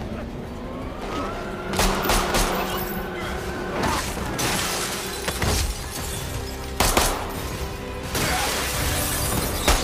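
Action-film soundtrack: a tense musical score runs under a series of sharp hits, thuds and crashes from a hand-to-hand fight, with glass shattering.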